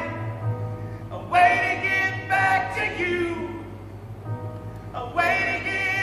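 Live vocal harmonies from a male lead singer and backing singers: a held sung chord swells in about a second in and fades away, then a new phrase comes in near the end.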